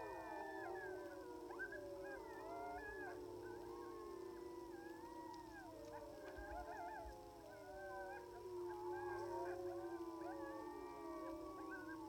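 A pack of timber wolves howling in chorus, many long wavering howls overlapping at different pitches, faint and distant.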